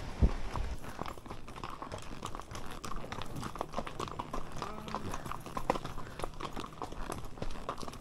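Horses' hooves clopping at a walk on a stony dirt trail, irregular strikes from several horses. A low thump right at the start.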